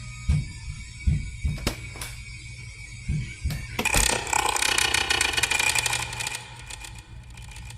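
Horror sound effects: about six heavy thumps spread over the first three seconds, then a loud rattling creak of rapid clicks lasting about two and a half seconds.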